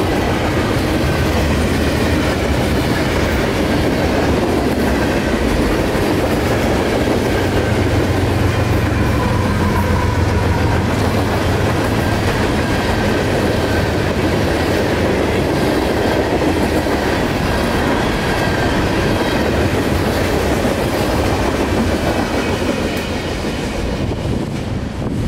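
CSX mixed freight train passing close by: the steady, loud noise of freight cars rolling along the rails.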